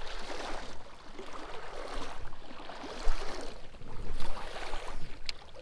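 Creek water swishing and sloshing around a wader's legs in repeated surges, each swell lasting about a second.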